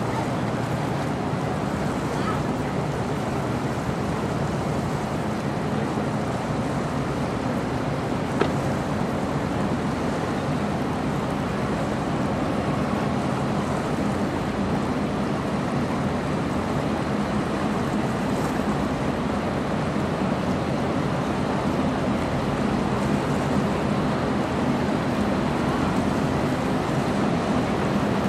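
Steady wash of choppy water and wind on the microphone, with a low drone from the 1,004-foot lake freighter Mesabi Miner passing close by. A single short tick sounds about eight seconds in.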